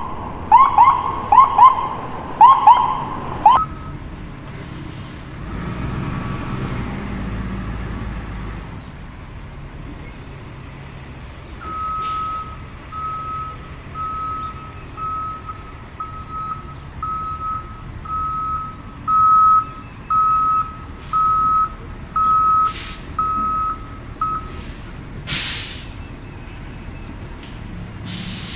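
Rising electronic siren whoops, about three a second, for the first few seconds. Later a truck's reversing beep sounds a little faster than once a second for about thirteen seconds as a tow truck backs up, followed by one loud sharp noise near the end.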